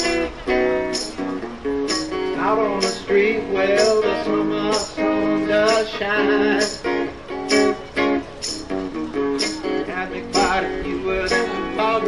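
Live acoustic guitar strummed in a steady rhythm, with a man singing along.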